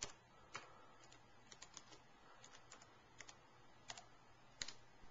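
Faint keystrokes on a Toshiba laptop keyboard as a password is typed: about a dozen quick, irregular key clicks, a few of them louder taps.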